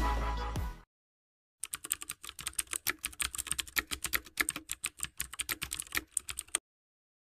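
Computer-keyboard typing: a fast, uneven run of key clicks that starts about a second and a half in and stops suddenly near the end. Before it, electronic music cuts off in the first second.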